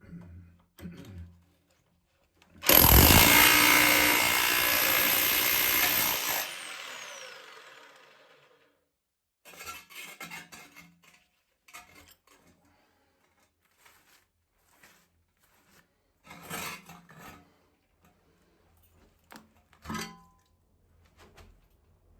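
A small electric jackhammer runs hard for about four seconds, breaking the old toilet pan off its concrete base, then its motor winds down with a falling whine. Scattered knocks and clatters follow.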